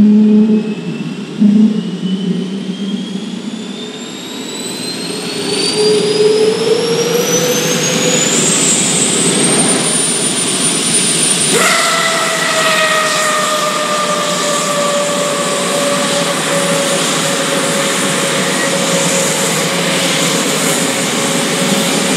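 Spey turbofan engine being turned over by its starter after shutdown to blow out a fire burning in its jet pipe: the whine rises steadily in pitch as the spool speeds up. About eleven seconds in, a second, lower whine starts suddenly and slowly falls in pitch.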